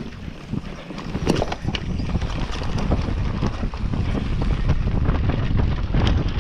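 Wind buffeting an action camera's microphone during a fast mountain-bike descent on a dirt trail, with tyre rumble and frequent clicks and knocks from the bike rattling over the ground. It gets louder after about two seconds.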